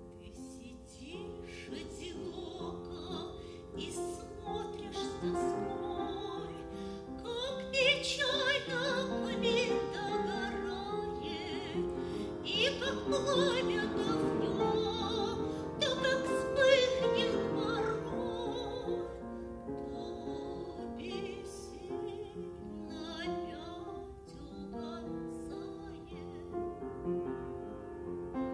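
Operatic singing with vibrato over a piano accompaniment, rising to its strongest in the middle of the passage.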